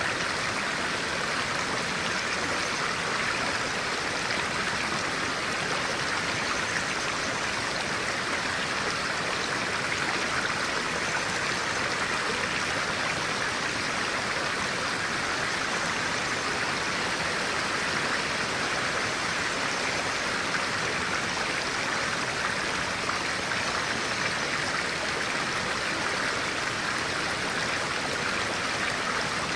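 Stream water flowing steadily, a continuous rushing with no change in level.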